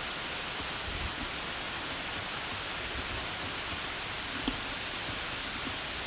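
Steady, even hiss of an old camcorder's recording noise, with a faint click about four and a half seconds in.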